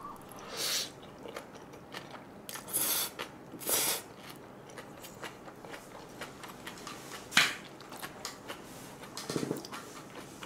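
Close-miked eating of black-bean-sauce noodles (gan jjajangmyeon): three short slurps in the first four seconds, then quieter chewing with one sharp click a little past the middle.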